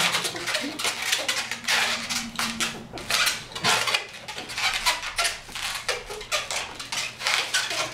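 Latex modelling balloon squeaking and creaking as it is twisted by hand, a steady run of irregular rubbery squeaks.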